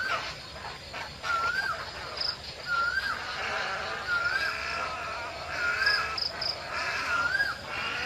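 Egrets clamouring at their evening roost, a dense steady chorus of calls. One bird repeats a short rising-and-falling call about every second and a half, and a few high chirps break through now and then.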